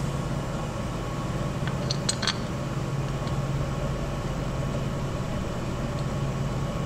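Steady low mechanical hum of workshop machinery, with a few light metallic clicks about two seconds in as parts are handled at the engine's blower inlet.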